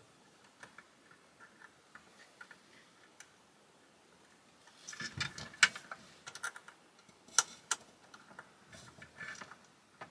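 Light clicks and taps of hand work on the wire terminals of a metal solar combiner box. A cluster of scraping clicks comes about five seconds in, and two sharp clicks follow a couple of seconds later.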